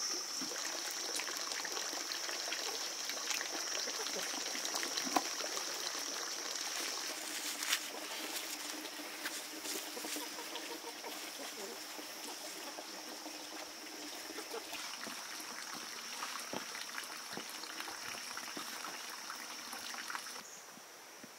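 A steady high-pitched hum under scattered small clicks and rustles; the hum cuts off suddenly near the end.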